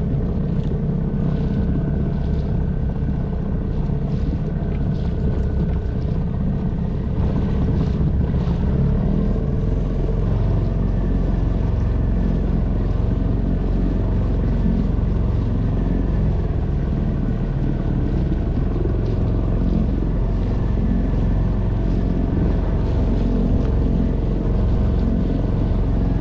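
Small boat's outboard motor running steadily under way, with water rushing along the inflatable hull. It gets a little louder about seven or eight seconds in.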